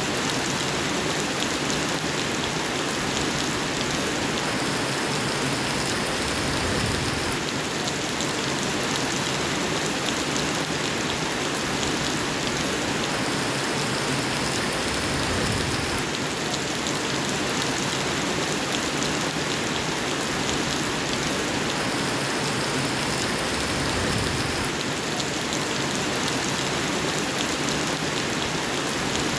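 Steady rain falling, a dense even patter of drops on a surface.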